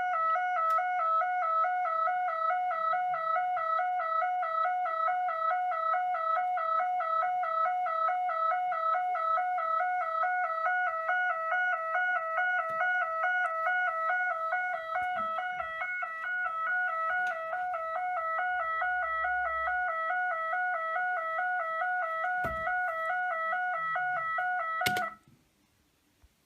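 Recorded railway level crossing warning alarm, played back: a steady two-tone warble, flipping rapidly between two close pitches. It cuts off suddenly with a click near the end.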